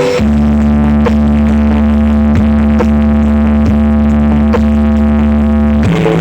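Loud electronic dance music played through a large sound system with heavy subwoofer bass: a held deep bass note under a sustained chord, with sharp beats about every half second to second. The bass note drops to a new pitch near the end.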